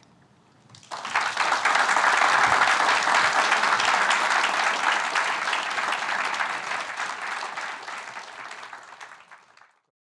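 Lecture-hall audience applauding, starting about a second in, fading over the last few seconds and cut off just before the end.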